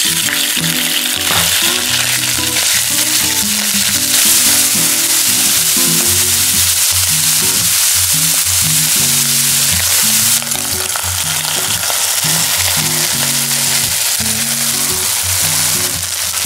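Minced pork sizzling loudly as it fries in hot oil in a nonstick pan, starting suddenly as the meat goes in and easing a little about ten seconds in. Background music plays underneath.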